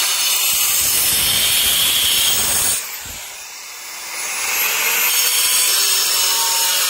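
Power-tool cutter with a Marbonite zero-chipping blade cutting a straight groove into a granite stair tread, run along a clamped guide. It grinds loudly, eases off about three seconds in as the motor whine sinks, then bites into the stone again a second and a half later.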